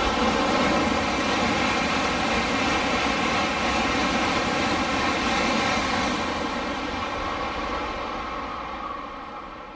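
An N700 series Tokaido Shinkansen passing through the station at high speed without stopping: a loud, steady rushing sound. It fades away over the last few seconds as the train recedes.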